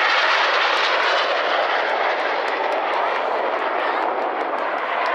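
Jet noise from the Red Arrows' BAE Hawk T1 jets, powered by Adour turbofans, as they pull away after a low-level pass, a steady rushing sound that slowly fades.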